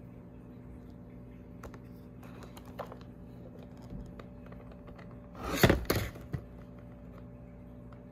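Clear plastic blister packaging being handled: a few light clicks, then a brief loud crackle about five and a half seconds in and one last click, over a steady low hum.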